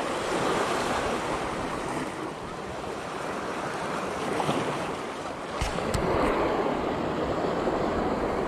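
Sea waves washing against a rocky shore, swelling and easing, with wind buffeting the microphone. Two short sharp clicks a little over halfway through.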